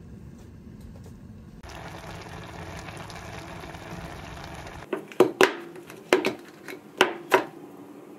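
A pot of rappokki simmering on a gas stove with a steady hiss, then, about five seconds in, a run of sharp clinks as chopsticks knock against a ceramic bowl and a glass container while takuan pickles are served.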